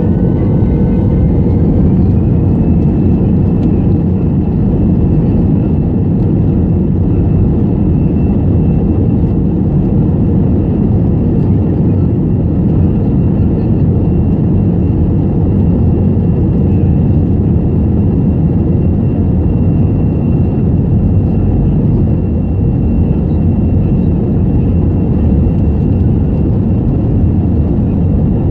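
Airbus A320 engines and airflow heard inside the cabin: a loud, steady low roar with a thin high engine tone that rises slightly about two seconds in and then holds.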